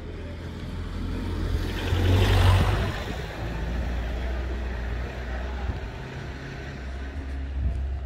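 A motor vehicle passing by, its noise swelling to a peak about two and a half seconds in and then fading, over a steady low rumble.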